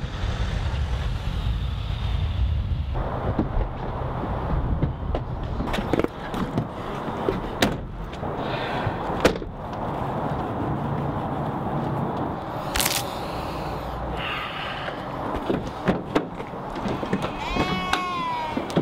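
A van's rear doors being opened and handled, with scattered knocks and clatter over street background noise. There is a low rumble in the first few seconds and a few short wavering squeals near the end.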